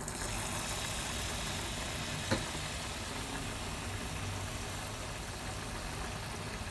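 Melted butter, sugar and creamer sizzling steadily in a hot pan as the caramel for popcorn starts to cook, with a single click about two seconds in.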